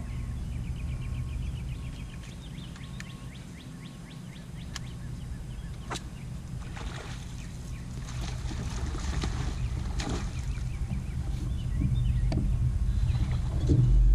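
Low, steady hum of a bass boat's motor, growing louder near the end, with a bird trilling in the first few seconds and a few sharp clicks.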